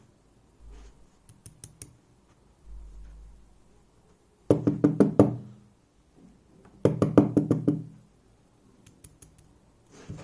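Two bursts of rapid knocking, each about a second long, from an EVVA 3KS lock being knocked while the picker works to free a stuck core that will not slide out of the cylinder. A few faint clicks come before them.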